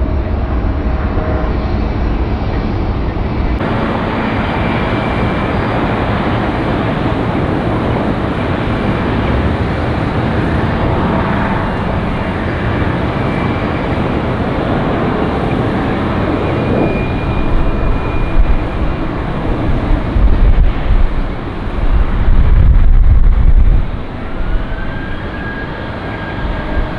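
Jet airliner engines running, a steady noise that changes abruptly a few seconds in. In the second half strong low rumbles swell and fade unevenly, and near the end a faint rising whine comes in.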